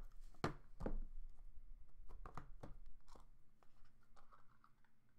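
A cardboard trading-card box being slit open with a blade and pulled apart by hand, with sharp cardboard cracks and scrapes, about half a dozen in the first three seconds, then quieter rustling handling.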